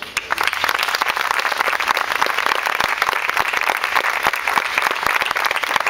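Audience applauding, with dense, even clapping that begins right after the introduction.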